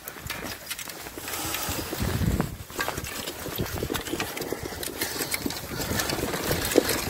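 Wheels and frame of a dog cart rattling and crunching over a rough dirt trail while two Samoyeds pull it, a steady rumble with many small clicks and knocks that grows louder about a second and a half in.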